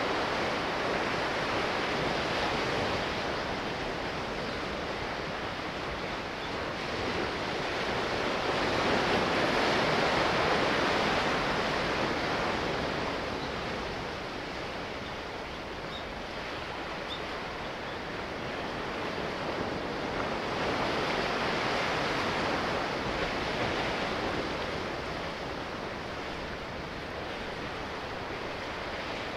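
Sea waves washing in a steady rush that swells and eases every ten seconds or so.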